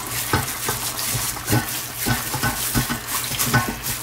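A battered turkey leg deep-frying in canola oil: a steady hiss with irregular crackles and pops.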